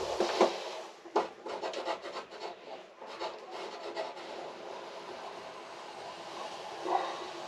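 Marine plywood scraping and rubbing against wood as a bulkhead panel is shifted into place, with a few sharp knocks in the first four seconds, then fainter.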